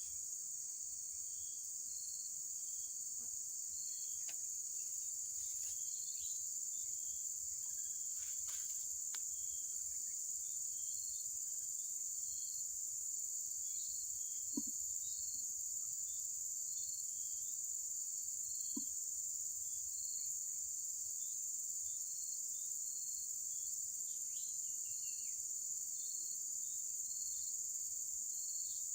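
Insects, crickets or similar, chirring in a steady high-pitched chorus, with short faint chirps repeating beneath it and a couple of soft clicks.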